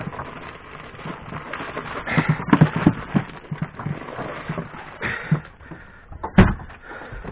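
Knocking and clatter of handling around a plastic ice box on a boat as fish on ice are moved about, with a run of knocks about two to three seconds in and one sharp, loud knock near the end.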